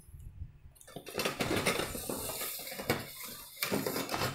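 Metal playpen frame tubes clattering and clinking against each other as a bundle of them is pulled out of a cardboard box, starting about a second in and loudest near the end.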